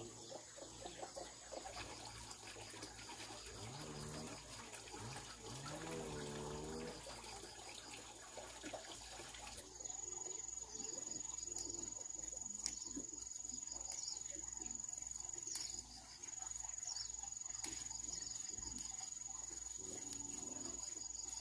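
Insects droning steadily in a high tone over quiet garden ambience, with a few faint voices in the first several seconds. After about ten seconds come sharp little clicks every second or two as chili peppers are snapped off the bush by hand.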